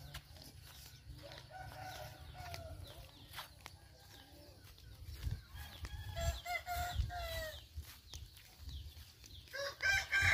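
Rooster crowing: faint crows early on, a clearer crow about six seconds in, and a louder one starting near the end.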